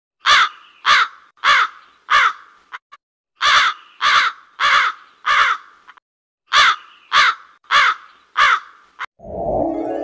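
A crow cawing in three bursts of four harsh caws, the caws a little over half a second apart, with short pauses between the bursts.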